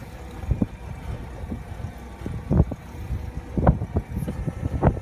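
Wind buffeting the microphone in irregular low thumps, four of them standing out, over a steady low rumble.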